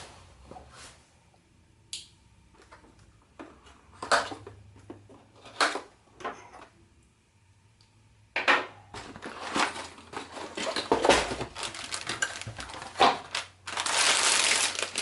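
A cardboard Lego set box being opened and handled: scattered taps and rustles at first, then from about halfway a steady crinkling of cardboard and the plastic parts bags, loudest near the end.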